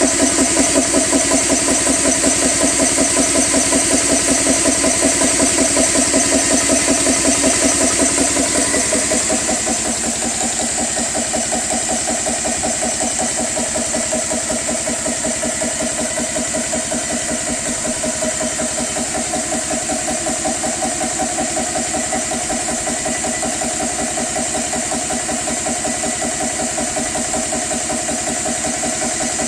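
GX CS3 high-pressure PCP air compressor running steadily with a rapid, even pulsing of its piston, pumping a PCP air rifle's bottle up toward 4500 psi. Its level drops slightly about nine seconds in, then it runs on evenly.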